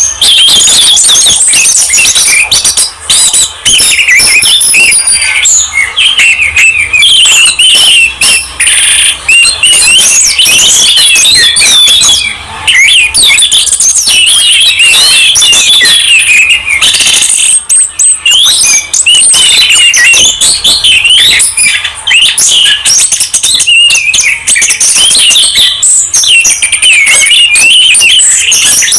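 Songbirds singing without pause in a dense, overlapping stream of fast warbled phrases, trills and chirps, high-pitched throughout.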